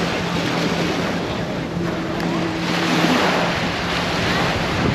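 Surf washing onto a beach, with wind buffeting the microphone; the surf swells about three seconds in. A steady low hum runs underneath.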